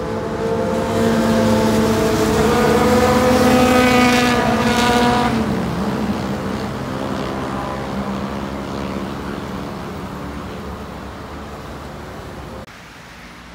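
Sport motorcycle exhaust at high revs, getting louder as the bike approaches, dropping in pitch as it passes about five seconds in, then fading away. The level falls off sharply near the end.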